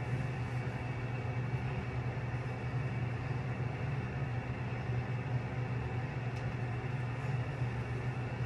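A steady low mechanical hum with an even hiss, as from a motor or fan running continuously, holding the same level throughout.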